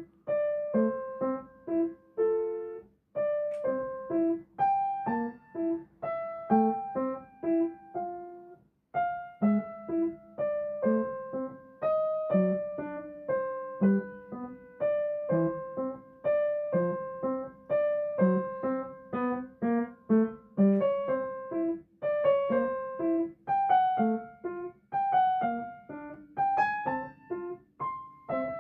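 Gentle piano music: a melody of single notes at a moderate pace, with a short pause about eight seconds in.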